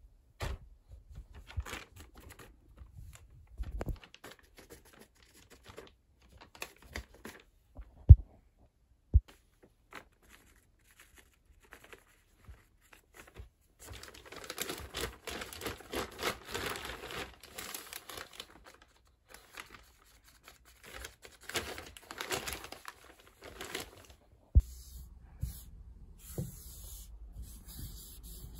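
Thin plastic shopping bag rustling and crinkling in uneven bursts as a cat moves about with its head inside it, heaviest about halfway through. Two sharp knocks stand out about eight and nine seconds in.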